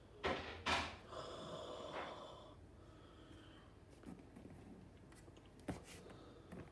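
Brown foam T-Rex toy's built-in sound box set off by pressing its button: two short rasping bursts, then a longer growl of about a second and a half. A few light handling knocks follow near the end.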